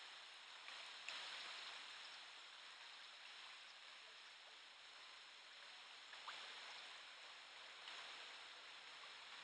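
Faint, steady rushing of the Vézère river's shallow water rippling over a riffle, with a couple of small ticks.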